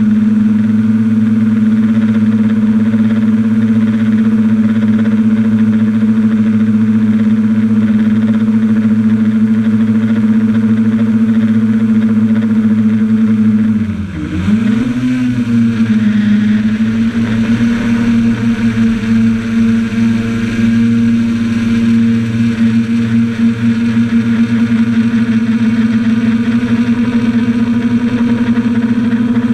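Quadcopter's electric motors and propellers humming steadily, heard from the camera mounted on the craft. About halfway through the pitch drops briefly and swings back up before settling into a steady hum again.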